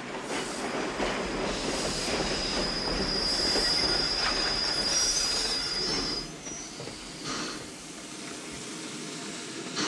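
Sierra No. 3, an 1891 Rogers steam locomotive, running close by on the track. A steady high metallic squeal, typical of wheels on the rails, lasts through its loudest stretch. The noise falls away about six seconds in.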